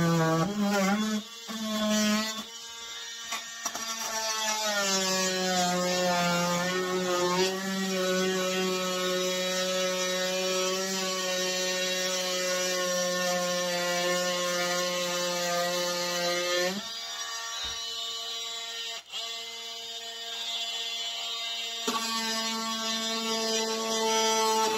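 Cordless oscillating multi-tool running with a steady high buzz, its blade cutting into a hard plastic battery case. The pitch sags and wavers in the first few seconds as the blade bites, then holds steady. The buzz falls away for a few seconds about two-thirds through and comes back up near the end.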